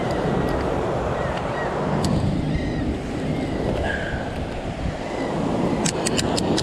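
Ocean surf washing over the rocks as a steady rushing noise, with wind on the microphone. A quick run of sharp clicks comes near the end.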